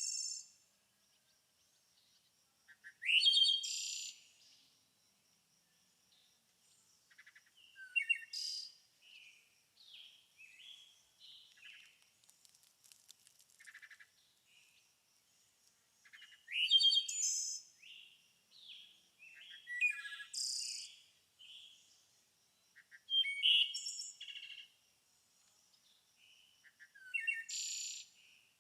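Songbirds singing: loud bursts of chirping song every three to five seconds, with softer twittering calls between.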